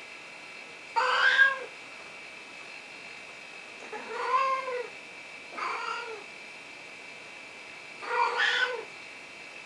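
Sphynx cat meowing four times, each meow rising and then falling in pitch, calling to be let into a closed room.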